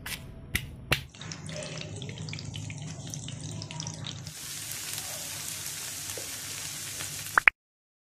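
A stone pestle pounding red chillies and bird's-eye chillies in a granite mortar, three sharp strikes in the first second. From about four seconds in, fried fish sizzling in hot oil in a pan, with a short rising chirp just before the sound cuts off.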